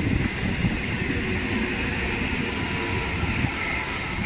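Eastern Railway electric suburban local train (EMU) running past on the track: a steady rumble and clatter of steel wheels on the rails, with a hiss above it.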